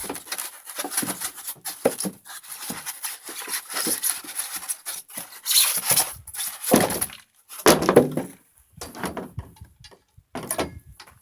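Handling noise from a boxed metal miter saw stand being unpacked: rustling, with irregular knocks, a few louder thumps and clanks of metal parts.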